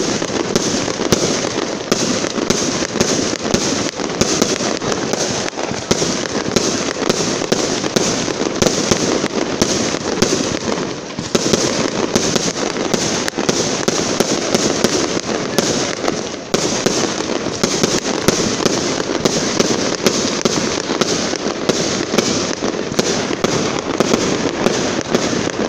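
Aerial fireworks display: a dense, unbroken barrage of shell bursts and crackling reports, many bangs a second.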